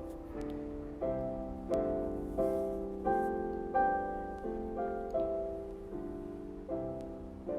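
Soft instrumental piano music, notes struck at a gentle, even pace.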